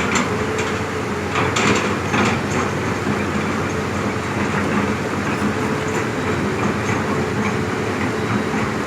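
Heavy diesel construction machinery running steadily, with a few sharp metallic clanks in the first two or three seconds.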